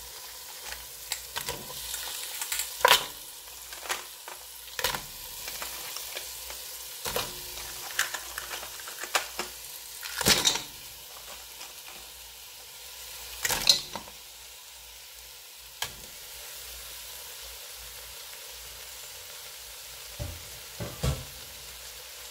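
Onion-tomato masala sizzling gently in a pot while raw blue crabs are dropped in, their shells knocking against the pot and each other in sharp clacks, the loudest about three, ten and fourteen seconds in.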